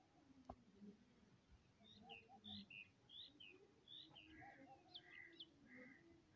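Faint chirping of small birds: short repeated notes that start about two seconds in, with one faint click near the start.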